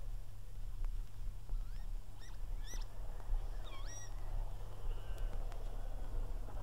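Northern lapwings calling: a few quick cries that sweep sharply up and down in pitch, between about a second and a half and four seconds in. Underneath runs a steady low hum and a faint distant rumble.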